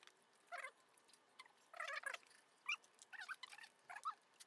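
Faint eating sounds from people eating crab by hand: chewing and lip smacks in short, scattered bursts.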